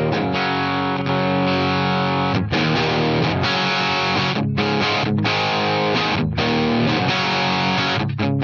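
Gibson Flying V electric guitar played straight into a Scarlett Scout tube amp head (two 6L6 and three 12AX7 tubes) and out through a 4x12 cab loaded with Vintage 30 speakers, with no pedals: overdriven chords ring out, cut by several short stops.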